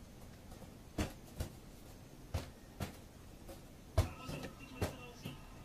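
A series of about seven short, soft knocks, several of them in pairs, with a faint high squeaky tone about four seconds in.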